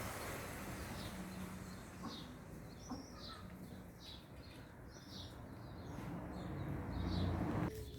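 Birds calling with a quick run of short high chirps, over a steady rushing background noise that swells near the end and then stops abruptly.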